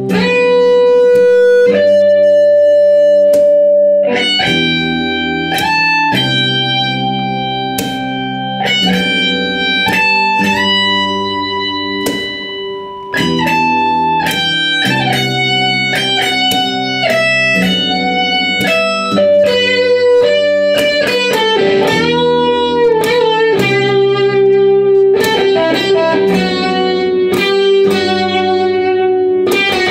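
Instrumental guitar music: a melody of picked, ringing notes over a held low bass line. Near the middle the level dips briefly, and a little later several notes waver and bend in pitch.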